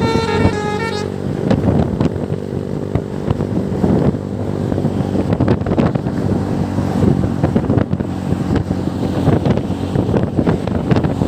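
A bus's multi-tone musical 'telolet' (basuri) horn plays the last notes of its tune for about a second. It then gives way to steady, loud bus engine and road noise.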